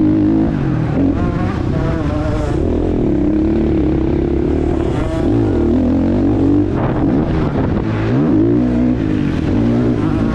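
Husqvarna FC 450's single-cylinder four-stroke motocross engine under hard riding, its pitch repeatedly rising and falling as the throttle is opened and shut.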